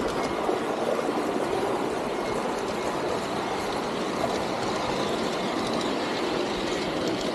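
Garden-railway model train rolling along its track, heard from on board one of its cars: a steady running noise of wheels on rails.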